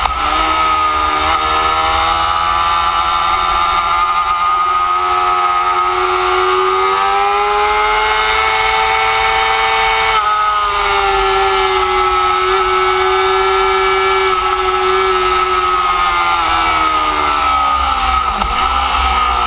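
Motorcycle engine running hard and held in fifth gear, its pitch slowly rising and falling with speed, with a sharp dip in pitch about two seconds before the end.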